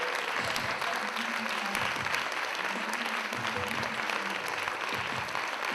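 Theatre audience applauding, a steady dense clapping that runs on without a break.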